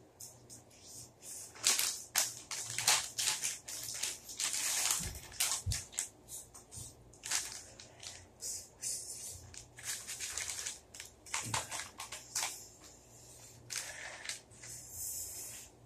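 Ghost pepper chips being eaten out of their bag: a run of irregular, crackly crunches and crinkles, close to the microphone.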